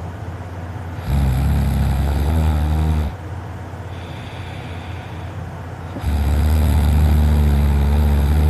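A person snoring in sleep: two long, low snores about five seconds apart, each lasting two to three seconds, with quieter breathing between.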